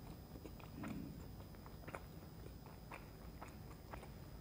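Close-miked chewing of soft chocolate-coated munchkins (doughnut holes): faint wet mouth clicks and smacks, a few a second and unevenly spaced, with a brief low hum about a second in.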